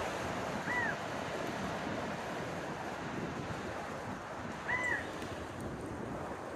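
Steady rushing wind, with two short whistle-like calls that rise and fall, about four seconds apart.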